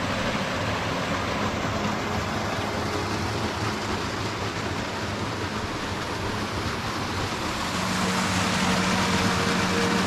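Steady rushing of a clear mountain stream cascading over rocks in a chain of small waterfalls.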